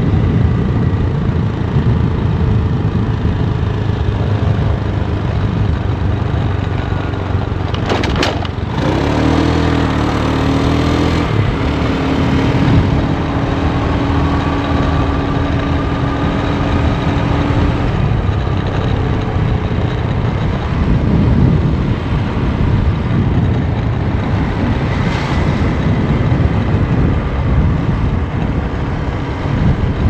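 Motor scooter underway, its engine running under a steady rush of wind and road noise, with a short sharp sound about eight seconds in and a steady hum for several seconds after it.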